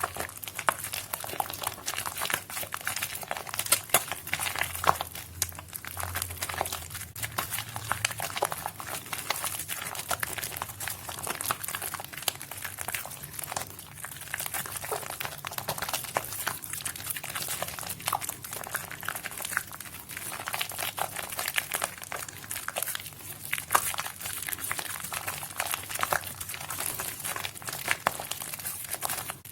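Soaked pink and white Nuvo bar soaps squished by hand, giving a dense, continuous run of small crackles and squelches.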